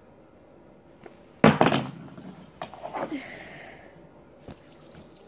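Handling noise from a fidget spinner trick: a sudden loud thump with a short clatter about a second and a half in, then a few lighter knocks and rustling.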